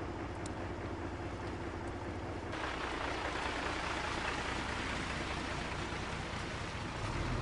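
A fire rescue truck's engine idling with a steady low hum, under a hiss that gets louder about two and a half seconds in.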